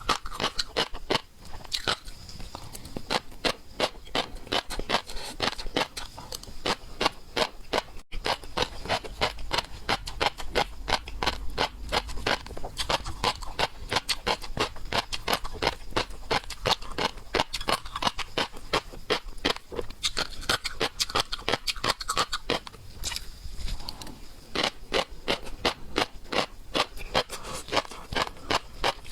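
Close-miked eating sounds: steady chewing and crunching of seafood, a dense run of sharp crackles and clicks, many a second, with a few brief let-ups.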